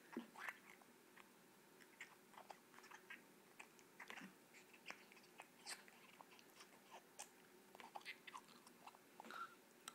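Faint, scattered wet clicks and smacks of a baby's mouth gumming and chewing on an adult's finger as his gums are massaged.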